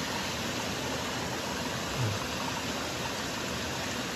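Steady rush of nearby waterfalls, an even noise with no breaks, with one brief low sound about halfway through.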